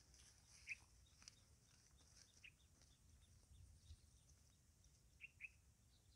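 Near silence: faint outdoor ambience with a few short bird chirps, two of them in quick succession near the end.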